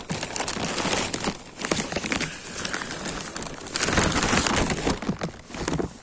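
Plastic sheet crinkling and rustling close to the microphone as it is pulled closed, loudest about four seconds in.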